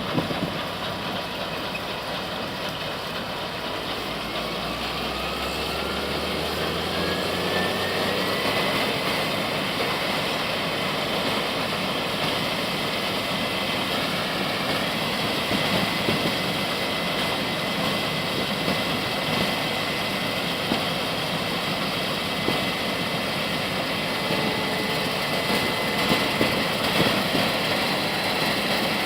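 Case IH 8120 combine harvester running steadily while harvesting. A whine climbs in pitch over about five seconds, starting about four seconds in, then holds at a steady pitch.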